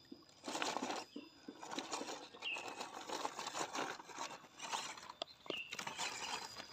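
Scale RC rock crawler's tyres crunching and grinding over loose limestone rubble, in irregular bursts as it crawls up the rocks.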